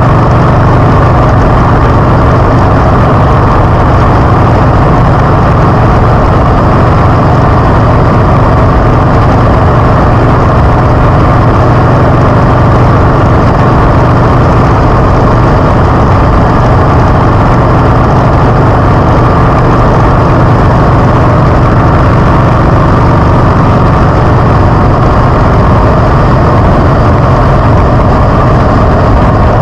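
Harley-Davidson V-twin motorcycle engine running loud and steady, its pitch holding even with no revving or gear changes.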